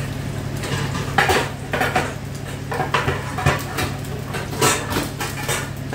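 Stainless steel wok and metal utensils clattering, with about ten irregular knocks and scrapes, while padrón peppers cook in the pan. A steady low hum runs underneath.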